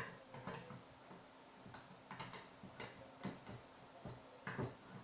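Parts of a Ruger Mini-14 rifle clicking and knocking against each other as they are fitted together during reassembly: a series of light, irregular clicks.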